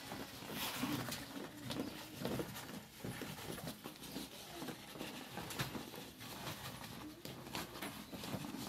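Sheep eating feed from a tray, with a steady run of irregular crunching and clicking bites and the odd shuffle of hooves.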